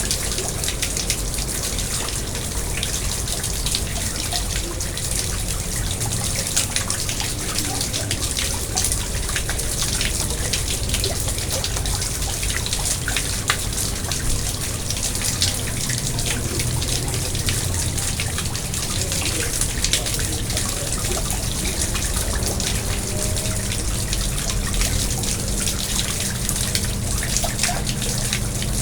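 Water trickling and splashing steadily into a garden pond, with many small drips and plops over the continuous run of water.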